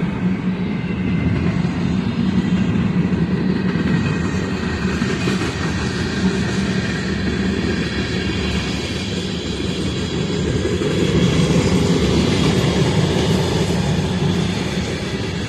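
Freight train cars rolling past: a continuous rumble and clatter of steel wheels on the rails, with faint thin high tones over it, swelling a little about two-thirds of the way through.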